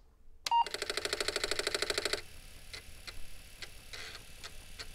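Title-card sound effect: a short electronic beep, then a rapid, even string of buzzy ticks for about a second and a half, followed by scattered single clicks like keystrokes on a computer keyboard.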